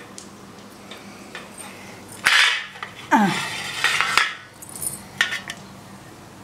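A shallow dish knocking and scraping on a tiled floor in a few short clatters, with a brief squeal that falls in pitch and a sharp click.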